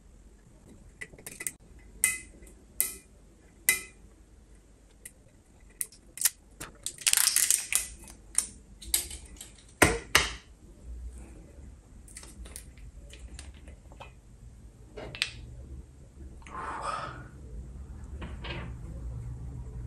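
A glass whiskey bottle being handled and its cap worked open: a run of sharp clicks and taps, a short crackling rustle about seven seconds in, and one loud click about ten seconds in.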